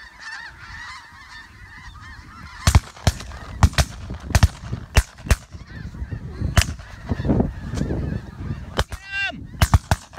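A flock of snow geese honking overhead. Nearly three seconds in, shotguns open up on the flock: about a dozen sharp shots in quick, uneven succession from several guns, with a late pair close together near the end.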